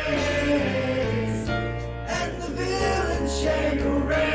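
Soundtrack music with singing over a steady low bass line: held notes that change pitch a few times.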